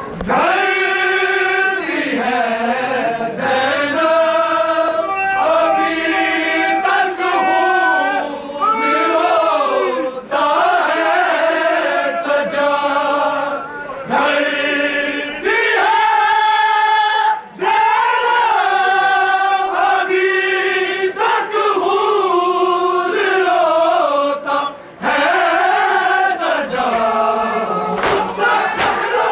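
Men's voices chanting a noha, a Shia mourning lament, in long melodic phrases with held notes, pausing briefly about ten, seventeen and twenty-five seconds in.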